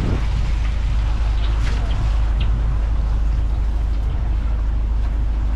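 Steady low rumble of fishing-harbour background noise, with faint voices in it.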